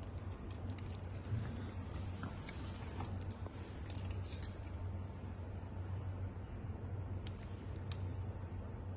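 Scattered light clicks and ticks of hands handling an electric bike controller's wires and plug connectors, over a steady low hum.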